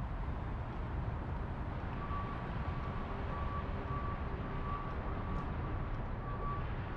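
Steady low outdoor street rumble, with a vehicle's reversing alarm starting about two seconds in and repeating a short high-pitched beep.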